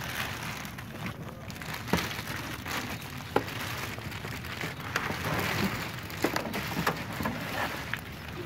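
Clear plastic bag rustling and crinkling as it is pulled back from a welding machine in its cardboard box, with scattered sharp crackles.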